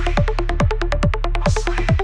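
Electronic dance music: a steady kick drum a little over twice a second, fast ticking hi-hats and a repeating short synth melody, with a hissy swell about a second and a half in.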